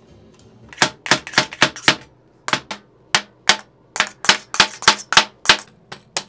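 A hammer striking a metal tripod leg again and again in sharp blows. A quick run of about five blows starts about a second in, then after a short pause the blows go on at about three a second.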